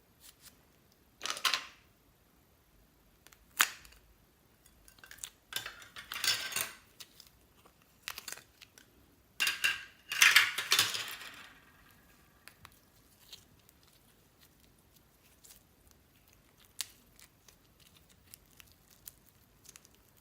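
Slime being handled and squished: bursts of sticky crackling and popping, loudest about ten seconds in, then only faint scattered clicks.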